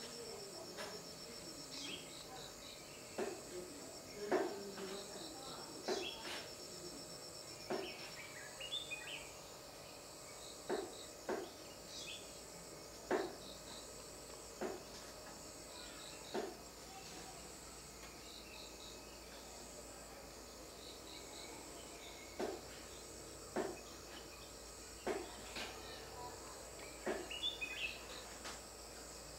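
Crickets chirping in a steady, fast pulsed trill, with sharp clicks or taps every second or two and, twice, a short chirping call.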